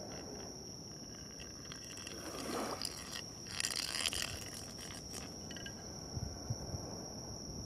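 Quiet evening outdoor ambience: a steady high-pitched insect trill, with a few faint soft swishes in the middle and light taps near the end.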